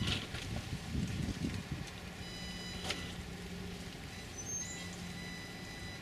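Electric drive motor and gearbox of an HB Toys R1013 RC rock crawler working under load while it climbs a concrete-block step, with rough scrabbling from the tyres at first, then a steady low whine from about two seconds in. A sharp click about three seconds in.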